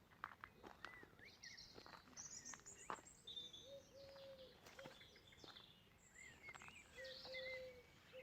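Faint birdsong from several birds: many short, quick high chirps and trills, with a lower, longer call twice. A few faint clicks come through in between.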